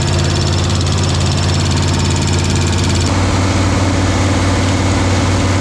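Chevrolet K1500 pickup's engine running steadily and loud, with a slight change in its tone about three seconds in.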